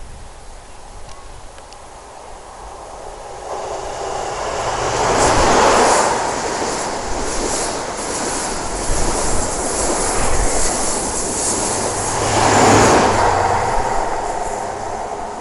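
InterCity 125 High Speed Train passing close by: the sound builds to a loud peak about five seconds in as the leading Class 43 power car goes past, the Mark 3 coaches rattle over the rail joints, and a second loud peak comes about twelve seconds in with the rear power car before the sound fades.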